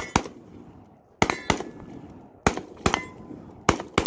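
AR-15 carbine fired in four quick pairs, eight shots over about four seconds. A short metallic ring follows the reports, typical of hits on steel targets.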